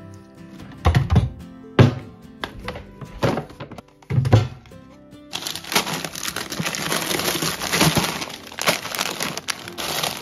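A few hollow thunks, then plastic bags of frozen food crinkling and rustling as they are rummaged in a freezer drawer, over background music.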